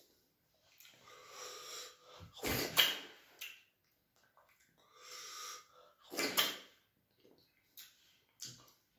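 Mouth sounds of eating soup with the fingers: two short, loud slurps, about two and a half and six seconds in, with softer breathy sounds between them.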